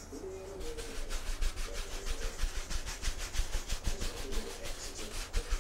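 A 2.5-inch paint brush loaded with yellow oil paint scrubbing back and forth over a canvas wet with liquid white. The brisk, even strokes come about five a second and start about half a second in.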